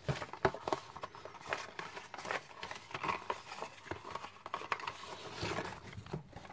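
A hand rummaging through a box full of folded paper entry slips: paper rustling and crinkling in irregular crackles.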